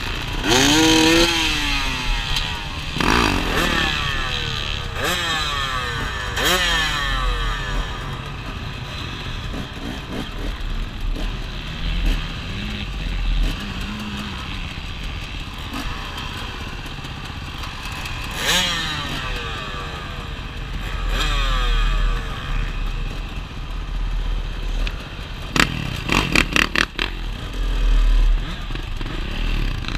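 Dirt bike engines running at idle, blipped up and down several times. Near the end comes a quick run of sharp knocks.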